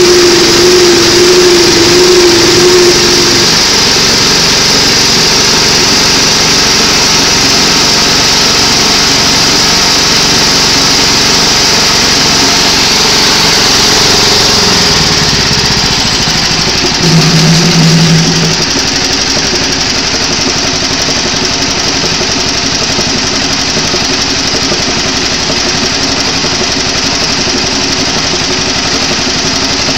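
Small engine running steadily, belt-driving a rewired Fisher & Paykel Smart Drive washing machine motor as a generator under test. The pitch dips about halfway through, and after that it runs on a little quieter.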